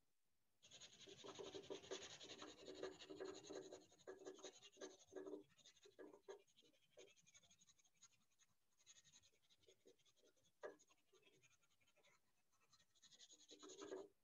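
Pencil scratching on sketchpad paper in many quick shading strokes, faint. The strokes are densest in the first few seconds and again near the end.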